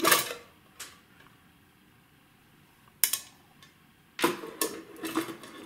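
Knocks and clatter of an air data computer module being handled on a bench, with its cover lifted off: a sharp knock at the start, a lighter one just after, another about three seconds in, and a quick run of knocks and rattles near the end.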